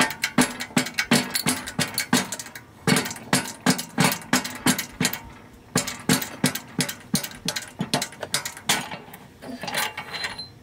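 Hand-pumped hydraulic shop press worked in quick short strokes, a rapid run of sharp metallic clicks about four or five a second, as the ram pushes a tapered roller bearing off a tractor pinion shaft through a bearing separator.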